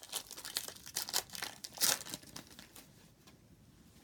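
A trading card pack wrapper being crinkled and torn open, a rapid run of crackles that peaks just before two seconds in and then dies down.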